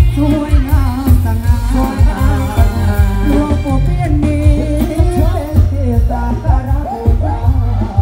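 Loud Thai band music with a lead singer, played through a rot hae sound truck's stacked loudspeakers, with heavy bass on a steady beat.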